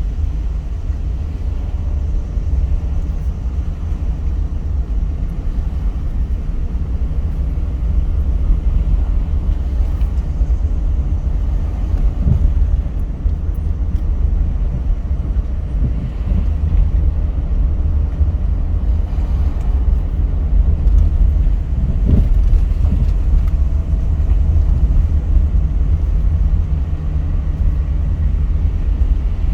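Car being driven along a road: a steady, loud low rumble of road and engine noise, with a few faint bumps.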